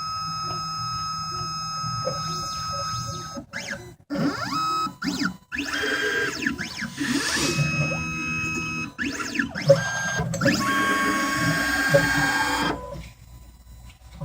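Key-cutting machine's stepper motors driving the carriage through an automatic tracer calibration. They whine at shifting pitches, some held steady and some gliding up or down, with short pauses between moves, and stop about thirteen seconds in.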